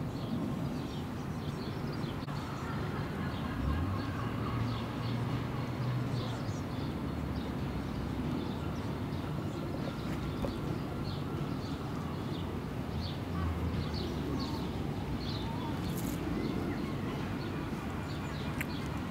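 Outdoor ambience of small birds chirping in short scattered calls over a steady low hum of distant traffic, with a deeper engine drone swelling for a couple of seconds about four seconds in.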